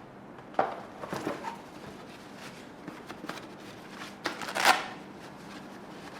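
Rustling and crinkling of packaging as model-plane parts are unpacked and handled, in irregular bursts with the loudest rustle about four and a half seconds in.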